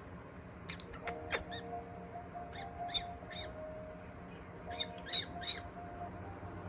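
Pet parrot giving short, harsh calls: three in quick succession a few seconds in and three more near the end, with a few sharp clicks before them.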